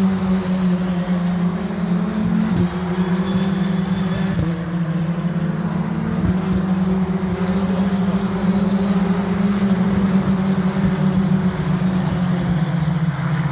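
Racing car engines running at high revs around the circuit at a distance, a steady drone that shifts slightly in pitch a few times.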